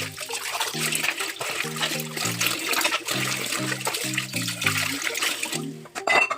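Tap water running and splashing in a kitchen sink while dishes are washed, with background music playing over it. The water sound drops away briefly near the end.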